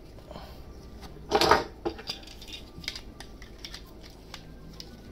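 Small hard-plastic clicks and taps from a snap-together plastic robot model being handled and set down on a tabletop, with one brief louder burst about a second and a half in.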